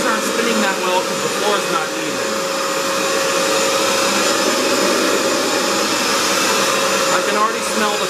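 Hoover FloorMate Edge wet floor cleaner running as it scrubs tile: a steady motor and suction drone with a constant hum.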